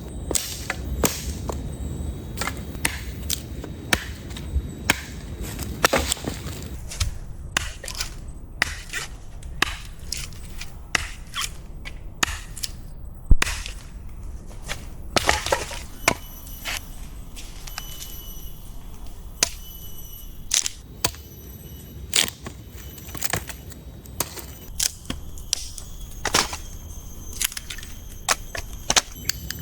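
Wood being chopped: irregular sharp knocks and cracks, sometimes several close together, with short pauses between.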